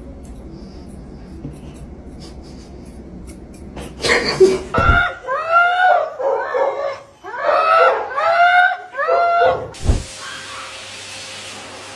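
A dog giving a run of six or seven high yelping cries over about five seconds, each rising and then falling in pitch. A steady hiss starts near the end.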